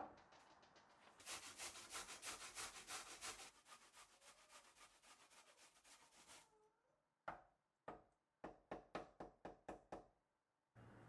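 Korean radish rubbed in quick strokes down the metal face of an IKEA Idealisk box grater, a quiet rasp about five or six strokes a second. It stops at about six and a half seconds, then a second run of separate strokes follows.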